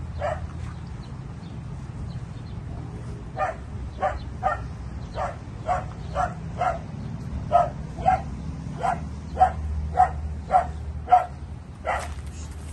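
A dog barking: one bark near the start, then after a pause of about three seconds a run of steady barks at roughly two a second.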